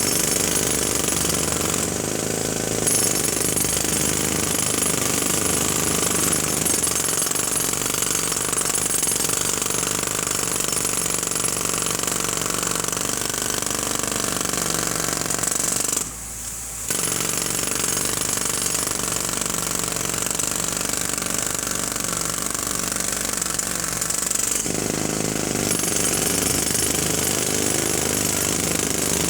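Jackhammer running loud and continuously, with one short pause about halfway through before it starts again.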